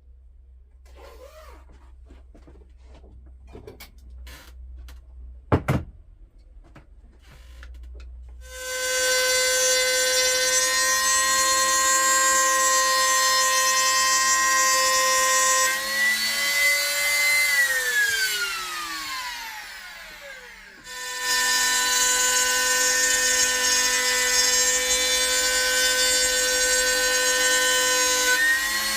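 Handheld electric router cutting grooves in wood, run twice. Each run is a steady, high whine that rises slightly as the cut ends, then winds down in pitch as the motor spins down after being switched off. Before the first run there is quiet handling of the workpiece and a single sharp knock.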